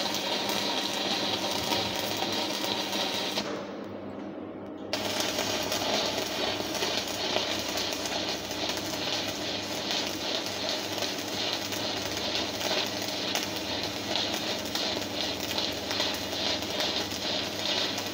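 Stick (manual metal arc) welding arc crackling steadily as an electrode runs a straight-line bead on steel plate. Around four seconds in the crackle drops lower and duller for about a second and a half, then comes back at full strength.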